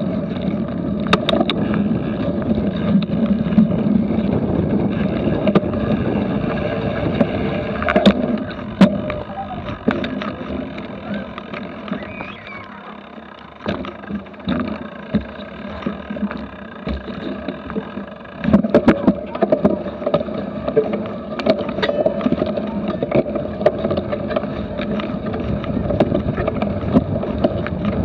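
Riding a cyclocross bike with an action camera mounted on it: wind on the microphone and tyre rumble over grass and dirt, with knocks and rattles from the bike over rough ground. It goes quieter in the middle while the rider coasts without pedalling, then a rapid clatter of knocks starts about two-thirds of the way in.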